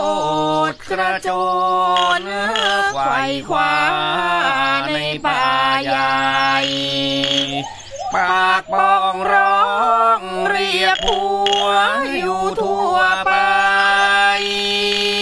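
Background music: a sung melody with long held notes that slide in pitch, over a low, steady accompaniment.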